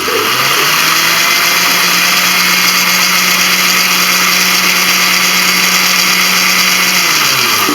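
Electric blender running for about seven seconds, blending ham, mustard, yogurt and sauces; it spins up at the start, runs at a steady pitch, and winds down near the end.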